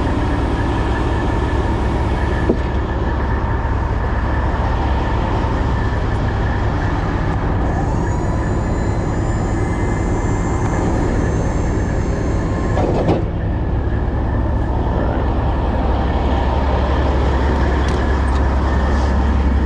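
A diesel truck engine idling with a steady low rumble, with a faint high whine in the middle and two short knocks.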